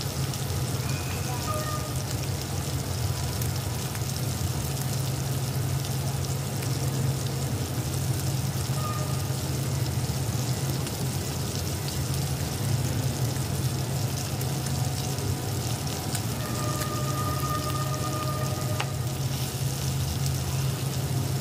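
Pork belly slices sizzling and crackling steadily in hot oil in a wok, over a steady low hum.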